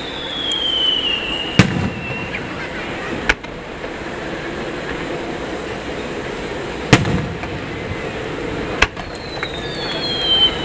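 Aerial firework shells bursting: four sharp bangs, the first about a second and a half in and the loudest about seven seconds in. High firework whistles falling in pitch run at the start and again near the end.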